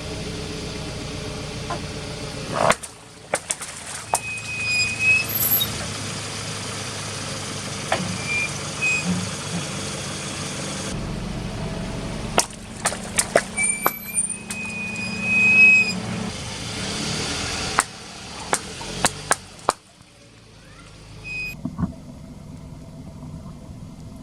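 A car's engine running slowly under a series of sharp cracks and pops as its tyres crush objects, with a few short squeaks; the background changes abruptly several times between short clips.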